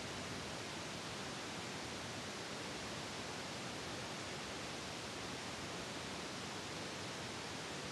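Steady, even hiss with no distinct sounds in it: the recording's noise floor.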